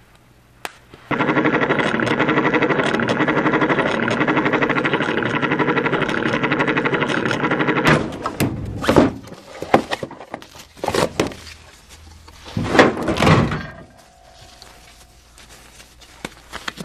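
A steady, loud electric buzz with a fast pulse for about seven seconds, cutting off abruptly. Then a drawer of a metal Husky tool chest slides and clatters as it is opened and rummaged in, with several rolling scrapes and knocks.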